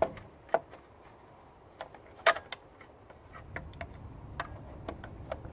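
Scattered clicks and knocks from handling the Razor scooter's metal and plastic parts, the sharpest right at the start, about half a second in and just past two seconds in.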